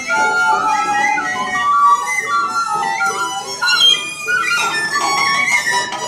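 Small experimental ensemble playing bird-like music: recorder and violin trading short notes that step and sometimes slide up and down.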